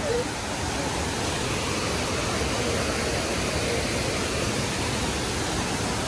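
Kuang Si Falls' cascades: a steady, even rush of falling water.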